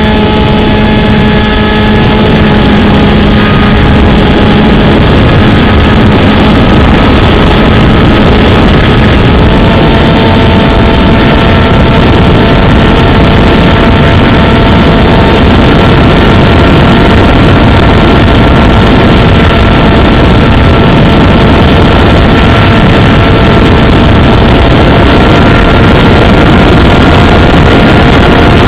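RC plane's motor and propeller running in flight, heard from a camera mounted on the plane: a steady whine over loud rushing air noise. The whine dips slightly in pitch in the first second or two, then steps up about a third of the way through as the throttle changes.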